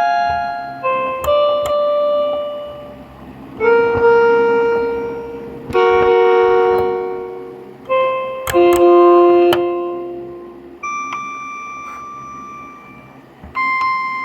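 Keyboard playing a slow run of chords in a piano sound, each chord struck sharply and left to ring and fade.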